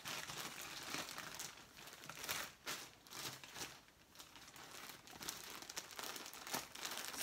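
Plastic packaging crinkling in short, irregular rustles as packs of yarn are handled.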